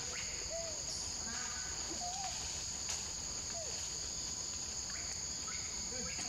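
Steady high-pitched buzzing of insects, with several faint, short squeaky calls that rise and fall, typical of a baby macaque whimpering.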